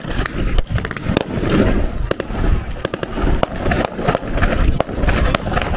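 Gunfire from reenactors' weapons firing blanks: many sharp, irregular shots, several a second, some in quick runs.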